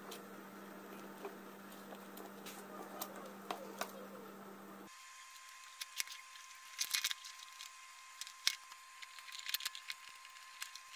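Faint handling sounds of electrical wires and cable being twisted and moved around a plastic junction box, with scattered light clicks and rustles that come more often in the second half.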